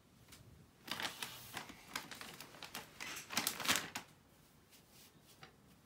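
Hands rummaging among make-up items, then crinkling a soft plastic wet-wipe pack as a wipe is pulled out. The crackly rustling comes in quick bursts from about one to four seconds in, loudest near three and a half seconds.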